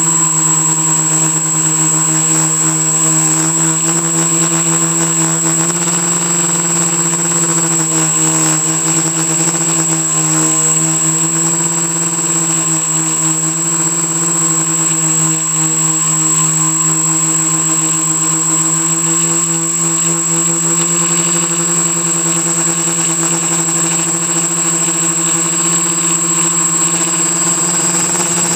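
ArduCopter quadcopter's brushless electric motors and propellers running steadily in flight, picked up by a camera taped to the frame. A loud steady buzzing hum whose pitch wavers slightly as the motors adjust, with a thin high whine over it.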